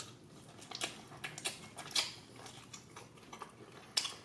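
Close-miked eating sounds: irregular sharp clicks and taps while a tomahawk steak is eaten, the loudest near the end.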